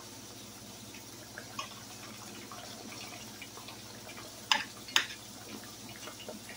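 Ripe plantain slices frying in hot oil in a pot: a steady sizzle with small crackles. Two sharp clicks of a spatula against the pot come about four and a half and five seconds in.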